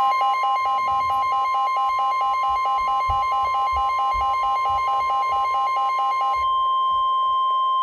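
NOAA Weather Radio warning alarm tone, a single steady 1050 Hz tone, heralding a severe thunderstorm warning. Over it runs a rapid beeping of about five beeps a second, which stops about six and a half seconds in while the tone holds on.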